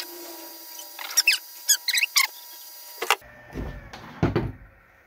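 Rapid squeaky chirps and twittering glides over a faint steady tone, cutting off abruptly about three seconds in. A few low thuds and rattles follow as the lead is taken off the improvised capacitor-bank switch and it jiggles.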